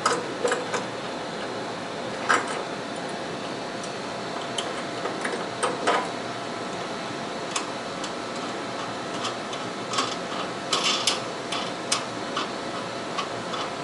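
Scattered metal clicks and knocks from hands working on a Ramco RS100P metal-cutting bandsaw's head and fittings, a few single ones and a small cluster about ten seconds in, over a steady background hum.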